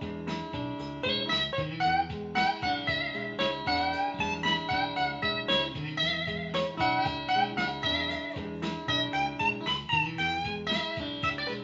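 Electric guitar playing a lead of quick single-note phrases with bent notes, over a looped bass line and a drum-machine beat from a BeatBuddy pedal.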